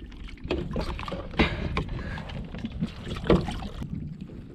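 Gear handling on a plastic fishing kayak: a few sharp knocks and rubs against the hull, the loudest about a second and a half and just over three seconds in, over a steady low rumble.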